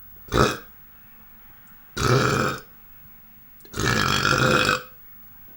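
A man burping loudly three times: one short burp, then two longer, drawn-out belches.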